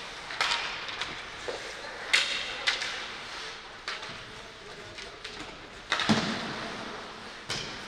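Ice hockey play on a rink: a run of sharp clacks of sticks and puck, with skates scraping the ice between them. A heavier thud about six seconds in.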